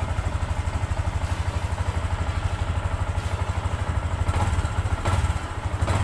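Yamaha Sniper 150's single-cylinder four-stroke engine idling evenly in neutral, briefly a little louder about five seconds in.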